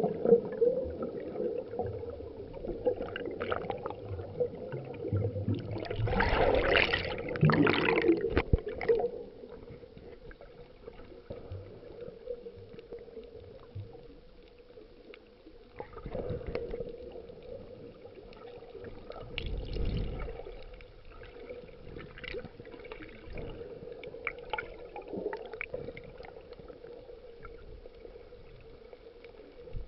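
Water gurgling and sloshing close to the microphone, with a steady low hum throughout. The first nine seconds are louder and busier; after that it settles to faint, scattered water noise.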